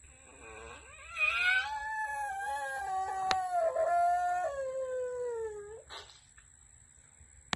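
A male Asian black giant tortoise (Manouria emys phayrei) gives one long drawn-out mating call while mounted on a female. The call rises at first, holds a steady pitch, then slides down before stopping about six seconds in.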